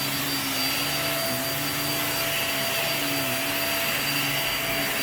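Upright vacuum cleaner running steadily on carpet, its motor hum dipping slightly in pitch now and then over a constant airflow hiss.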